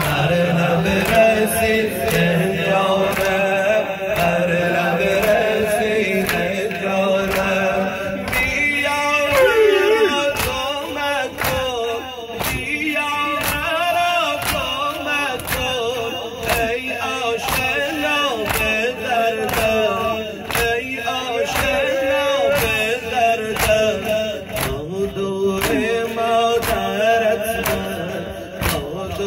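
A Shia noha mourning chant: a male lead singer on a microphone with a crowd of men chanting along, over a steady beat of sharp slaps from rhythmic chest-beating (sineh-zani).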